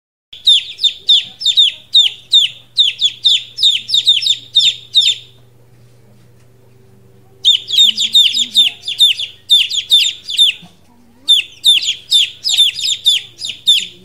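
Two-day-old chicken chicks peeping: rapid, loud, high peeps that each slide downward in pitch, several a second. They come in three bouts, broken by a pause of about two seconds near the middle and a shorter one later.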